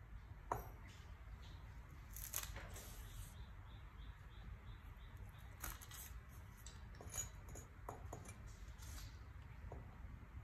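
Faint, scattered taps of a cleaver slicing spring onions against a wooden chopping board.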